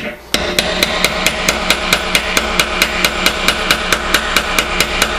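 Rapid, evenly paced hammer blows on a hardened steel cold chisel, about four or five a second, shearing chips off a bronze bar. The blows start about a third of a second in after a short pause, and each strike rings briefly.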